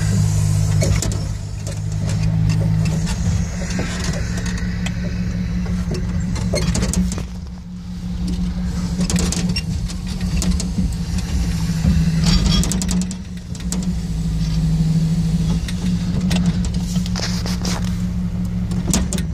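Engine running to drive a timber loader crane's hydraulics, its note rising and falling several times as the crane is worked, with scattered clanks and knocks from the crane and grapple.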